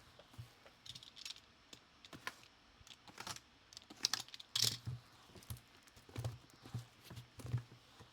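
Scattered clicks, taps and rustles of hands handling and starting to open sealed trading-card boxes and their packaging, a few sharper snaps around the middle.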